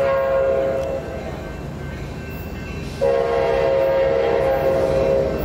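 Horn of an approaching passenger train: a blast of about a second, then a longer blast starting about three seconds in, over the low rumble of the train.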